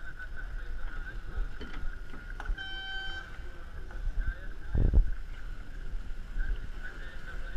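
Wind and water noise aboard an Extreme 40 racing catamaran sailing. A short beep sounds about three seconds in, and a dull thump comes about five seconds in.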